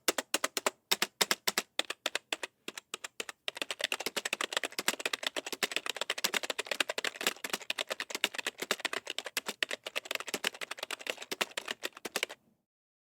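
Typing on a desktop computer keyboard with tall keys. Separate, spaced keystrokes for the first three seconds or so, then fast continuous typing that stops abruptly near the end.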